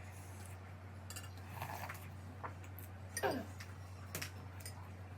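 Spoon and dishes clinking during a meal: a handful of short, separate clinks and scrapes, the loudest about three seconds in, over a steady low hum.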